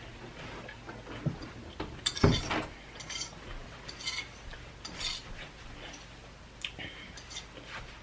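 Eating utensil clinking and scraping against a plate, in short irregular strokes, with one louder knock about two seconds in.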